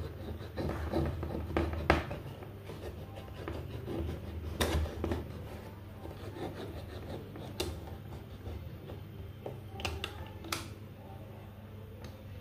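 Kitchen knife cutting open a tin can lid around its rim, the blade scraping and rasping on the metal, with a sharp click every couple of seconds as the tip punches or levers through the tin.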